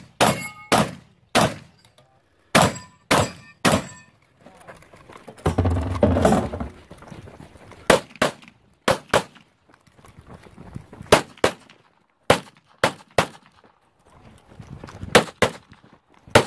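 Benelli M2 semi-auto shotgun firing about six shots at steel plates in the first four seconds. About six seconds in, a second of low rumbling noise follows. Then a 9mm 2011 pistol fires, mostly in quick pairs.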